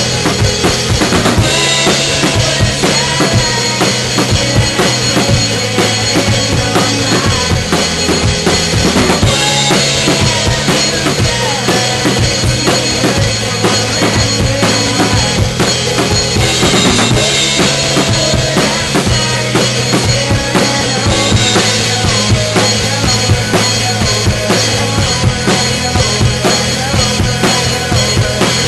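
Drum kit played at full tilt in rock time, with bass drum, snare and cymbals, along with an alternative rock song whose bass and distorted guitars run underneath. The cymbals wash in more brightly about a second and a half in and again past the twenty-second mark.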